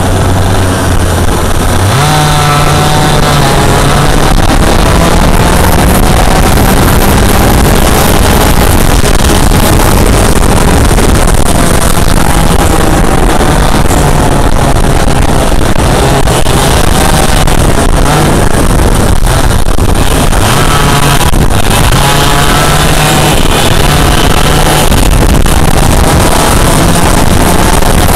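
Yamaha KT100 100cc two-stroke kart engine running hard on board, loud, its revs climbing sharply about two seconds in and then rising and falling again and again through the corners, with other karts' two-strokes close by.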